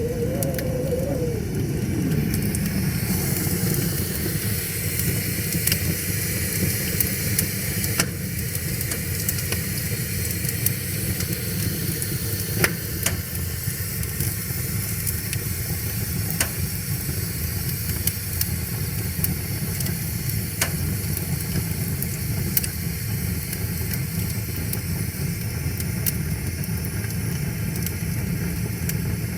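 Wood fire crackling with scattered sharp pops every few seconds over a steady low rush of flowing river water. A brief falling tone fades out in the first two seconds.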